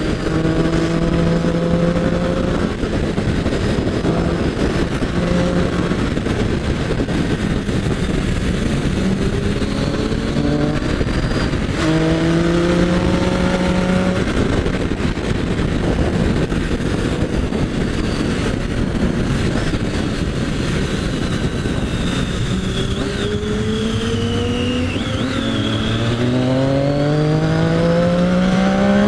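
Sport motorcycle's engine running at road speed under a heavy rush of wind and road noise, its pitch holding and shifting with the throttle. Over the last few seconds the revs climb steadily as it accelerates.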